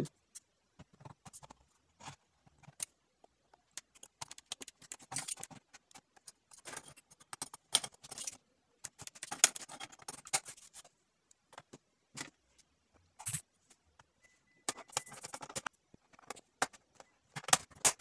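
A metal-and-plastic optical-bay drive caddy being pushed into a Dell Inspiron N5110 laptop's DVD bay and the laptop case handled: scattered scrapes, rattles and small clicks.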